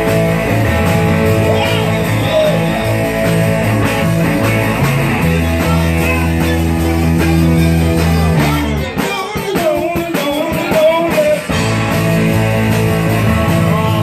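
Live rock band playing a rock and roll song, with electric guitars, bass and drums and the vocals low in the mix, recorded on a phone. About nine seconds in, the bass and drums drop out for a couple of seconds, then the full band comes back in.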